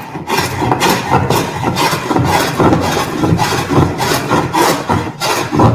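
Scrub plane taking quick, repeated rasping strokes across the face of a rough board, about two to three strokes a second. It is taking heavy cuts to take down the board's convex high spot and flatten the face.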